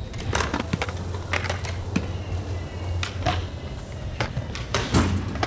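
Irregular skateboard clacks and knocks on concrete, from boards being set down and wheels and tails hitting the ground, about a dozen sharp hits over a steady low hum.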